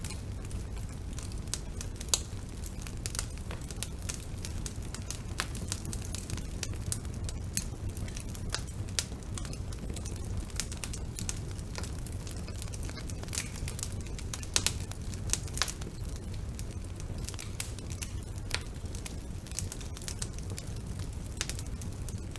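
Wood fire burning in a fireplace: a steady low rumble of the flames with irregular crackles and snaps, a few sharper pops about two seconds in and around the middle.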